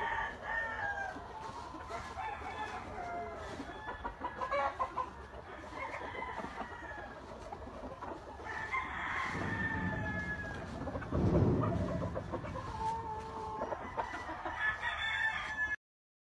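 Kelso gamefowl roosters clucking and crowing, many short calls overlapping, with one longer falling crow about nine seconds in. A low rumble comes in around eleven seconds, and the sound cuts off suddenly near the end.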